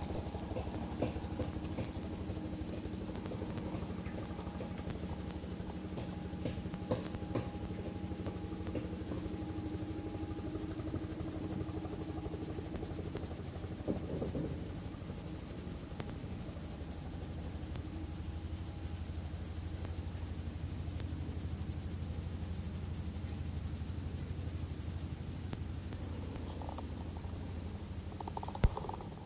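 Loud, steady insect chorus, a continuous shrill high-pitched buzzing trill, that cuts off abruptly at the end.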